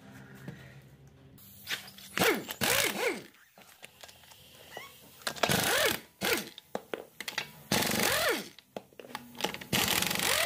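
Impact wrench loosening a wheel's lug nuts in about four short bursts, each one rising and falling in pitch as the tool spins up and runs down.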